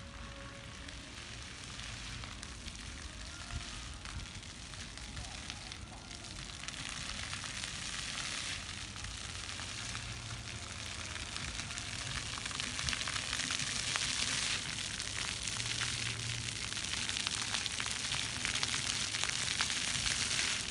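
Water jets of a ground-level plaza fountain falling and splashing on wet paving: a steady hiss that grows louder from about seven seconds in.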